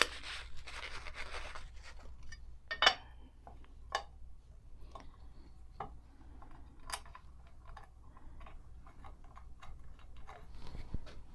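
A metal cover plate being fitted back onto a Singer 223 sewing machine and screwed down. A brief rustle is followed by scattered light clicks and taps of metal on metal.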